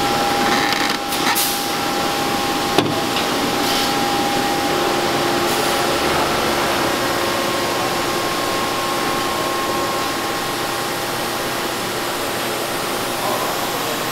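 Steady workshop machinery noise: an even hiss with a faint steady hum, and one sharp click about three seconds in.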